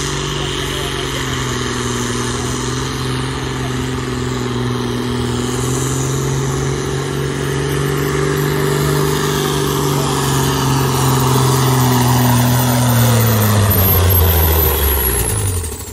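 Diesel semi truck engine under full load pulling a weight sled, held at steady high revs and getting louder as the truck nears. About thirteen seconds in, the revs drop, a high whine falls away with them, and the engine sound cuts off sharply as the pull ends.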